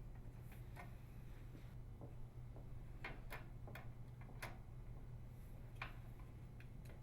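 Light clicks of plastic parts as a microwave door latch lever is worked off the old latch bracket and onto the new one: a handful of separate ticks, several close together about three to four and a half seconds in.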